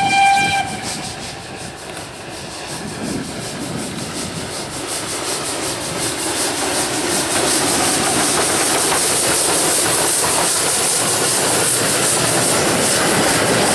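Ol12 steam locomotive's whistle cutting off about half a second in, then the engine's exhaust chuffing in a quick regular beat with a hiss of steam, growing louder as it comes close.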